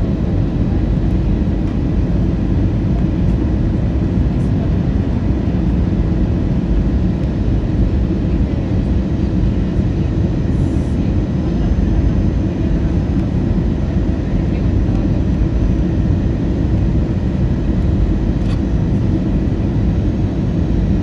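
Steady low rumble of an Airbus A320's jet engines and rushing air, heard from inside the passenger cabin during the approach to landing.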